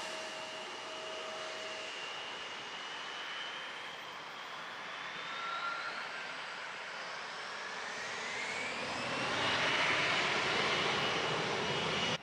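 Jet airliner engines with a whine that rises in pitch and grows louder toward the end, as the plane approaches to land.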